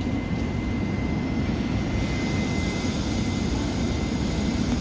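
Steady low rumbling outdoor noise with a faint thin high whine in the first part, the kind made by wind on the microphone or distant traffic and aircraft.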